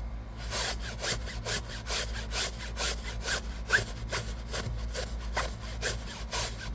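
Small stiff hand brush scrubbing a cloth car seat, in quick back-and-forth strokes at about four a second.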